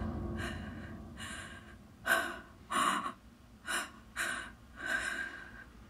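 Quick, shaky breaths and gasps, roughly two a second, like a frightened person breathing hard. A low rumble fades out over the first second.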